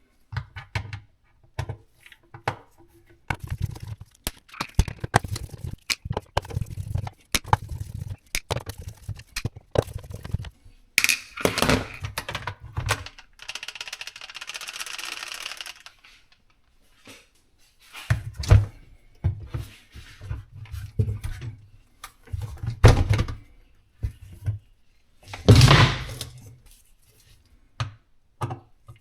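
Dishwasher parts being handled during repair work: irregular clunks, knocks and clicks of plastic and metal pieces, with a few louder knocks and a short stretch of hissing noise about halfway through.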